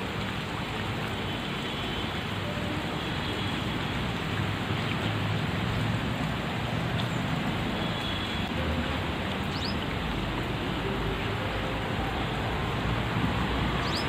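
Steady rain falling on trees, lawn and puddled paths, an even hiss with a low rumble underneath.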